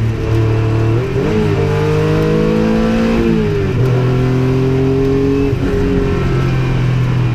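Turbocharged 1991 Acura NSX race car's engine running hard from inside the cabin. The revs climb steadily for about two seconds, fall about three and a half seconds in, hold, then drop again near six seconds.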